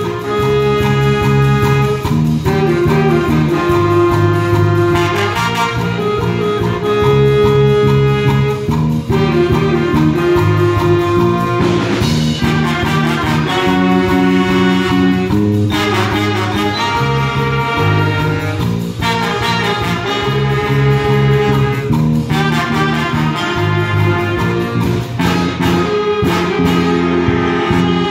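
Jazz big band playing: saxophones, trombones and trumpets together in full chords that change about every second, with a trumpet out front.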